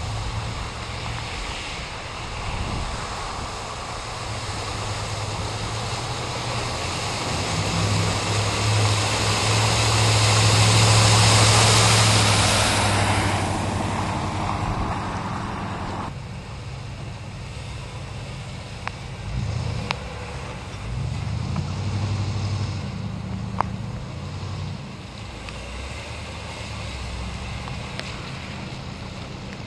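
Vehicles driving through floodwater: engines running under a steady rush of spray and wash from the tyres. It builds to its loudest as one passes close about eleven seconds in. The splashing cuts off abruptly at about sixteen seconds, leaving a quieter engine hum as another vehicle goes through shallower water.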